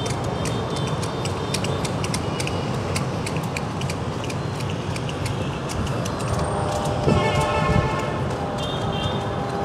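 Steady city street traffic noise with scattered light ticks. A brief pitched tone rises out of it about seven seconds in.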